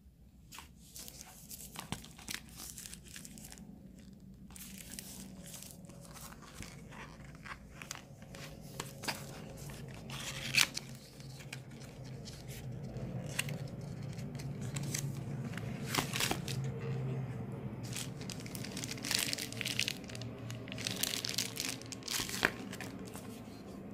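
Cardboard phone packaging being handled and opened by hand: inner trays and a small accessory box lifted, slid and pulled apart, with rustling, scraping and many scattered clicks and taps, busiest in the second half.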